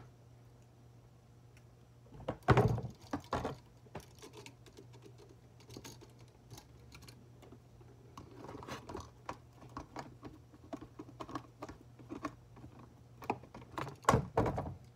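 Hand tools and bare copper ground wire being handled at a wooden workbench: pliers clicking and metal rattling as the wire is worked, with tools set down. Louder knocks come about two and a half seconds in and again near the end, over a low steady hum.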